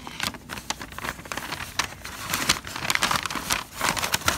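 Brown kraft-paper packaging crinkling and rustling as it is pulled open by hand: a fast, irregular run of sharp crackles that gets busier in the second half.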